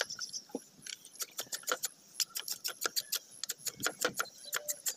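Small live fish flipping and jumping in a plastic bucket and against the mesh of a trap net, making a quick, irregular patter of sharp taps and clicks, several a second.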